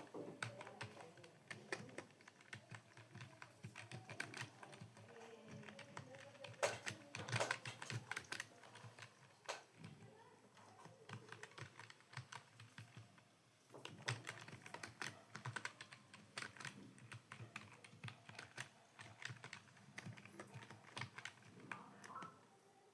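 Typing on a computer keyboard: rapid, uneven keystroke clicks, easing off for a few seconds in the middle before picking up again.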